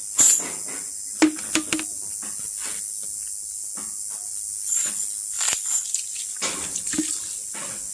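Steady high-pitched insect chorus, with scattered sharp knocks and clatters of things being handled; the loudest knock comes just after the start, then a quick group of three about a second in.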